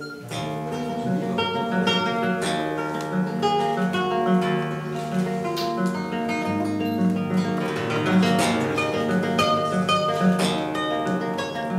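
Classical guitar played solo and fingerpicked, with a low note repeating at an even pulse under a picked melody.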